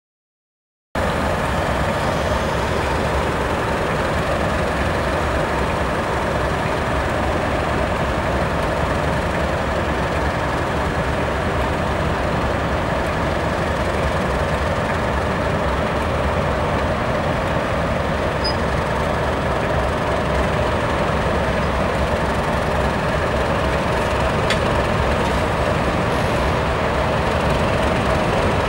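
Class 37 diesel locomotive's English Electric V12 engine running steadily as the test train pulls slowly out, with the rumble of the coaches rolling along the track. The sound starts abruptly about a second in.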